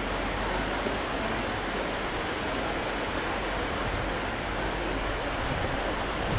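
Steady wash of sea surf breaking on the beach, with a low rumble underneath that fades about five seconds in.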